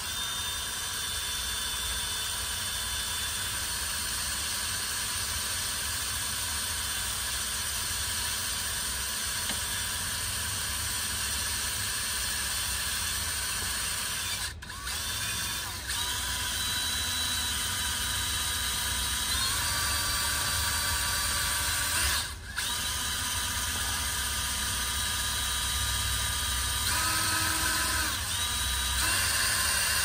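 Cordless drill running steadily under load, boring through a hard Micarta knife scale and its liner at the pivot hole. The motor stops briefly twice, and its whine steps up in pitch a few times.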